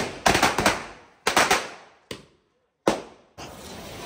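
Firecrackers going off: a rapid run of sharp bangs in quick succession, a second short cluster about a second later, then a single last bang near the end.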